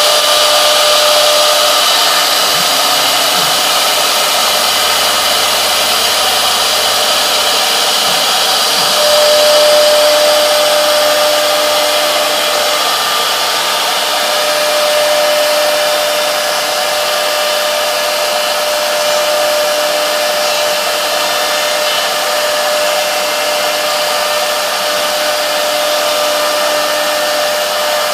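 Three-spindle CNC wood router running, its spindle routing a carved pattern into a wood panel: a steady spindle whine over the hiss of the cutter, the whine growing stronger about nine seconds in.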